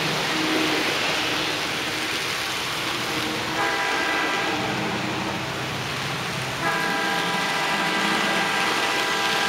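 Model diesel locomotive's electronic horn sounding a short blast about three and a half seconds in, then a longer blast from about seven seconds on, over the steady running noise of the model train.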